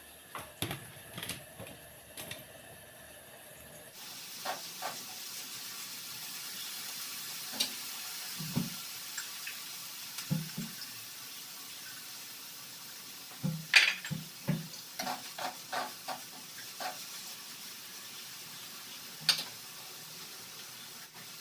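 Kitchen work at a stove: scattered clinks and knocks of utensils and cookware against pots and pans. A steady hiss runs under them from a few seconds in.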